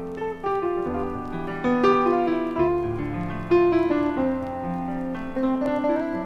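Background music: a piano playing a melody over held chords.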